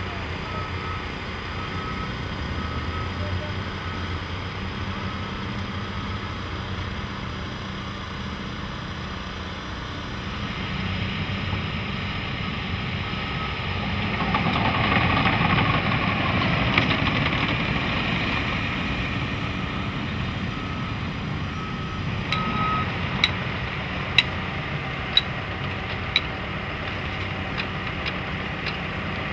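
Heavy earthmoving machines, a bulldozer and an excavator, running steadily, with a backup alarm beeping near the start and again about three-quarters of the way through. The machine noise swells in the middle, and near the end there are four sharp clanks about a second apart.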